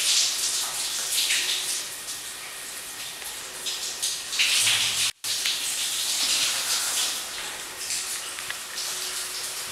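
Running water hissing, like a shower spraying, swelling and falling in level, with a brief dropout about five seconds in.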